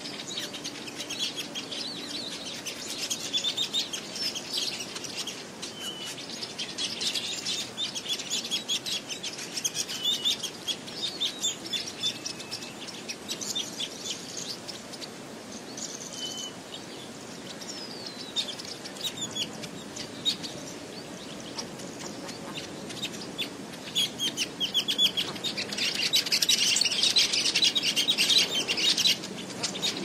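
Weaver birds chattering: a dense stream of rapid high chirps with a few short whistled notes, louder for a few seconds near the end.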